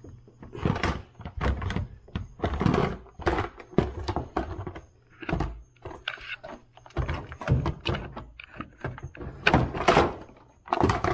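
Irregular thunks and knocks of plastic parts on a Yamaha GP1800R jet ski being handled and pushed back into place after the ECU is reconnected. There are about a dozen, unevenly spaced, and the loudest two come close together near the end.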